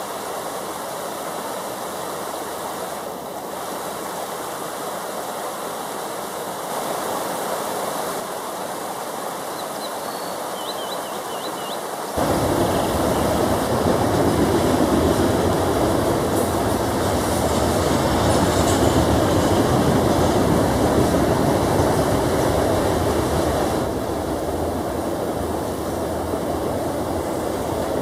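Steady rush of a fast-flowing river over rocks. About twelve seconds in it turns suddenly louder and deeper, then eases back somewhat near the end.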